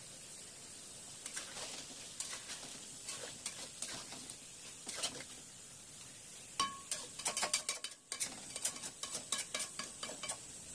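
Flat metal spatula stirring and scraping chicken pieces through thick gravy in a metal pan over a low sizzle. From about two-thirds of the way through, the spatula clinks against the pan quickly and repeatedly, with a brief metallic ring.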